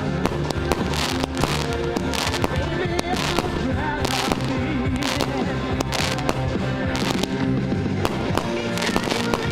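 Fireworks going off in rapid succession, many sharp bangs and crackles one after another, over loud music with a steady beat.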